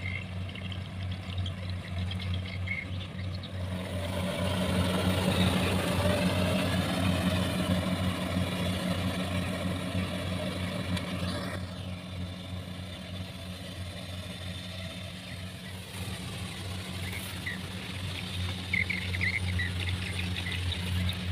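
Kubota combine harvester running steadily while cutting rice, a constant low engine hum, louder for several seconds in the middle.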